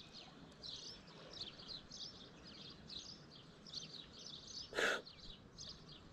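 Birds chirping in the background, many short high chirps overlapping one after another. A single brief knock sounds about five seconds in.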